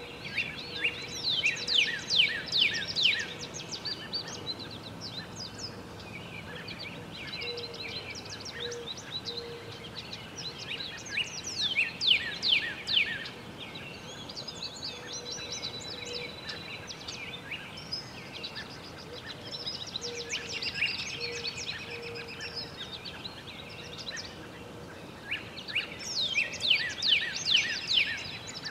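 Songbirds singing in repeated bouts of quick, high, downward-sliding notes, each bout lasting a couple of seconds, with softer warbled phrases between, over steady outdoor background noise.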